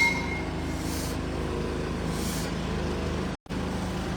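A vehicle engine running steadily, with a few short hisses and a brief cut-out in the sound just past three seconds.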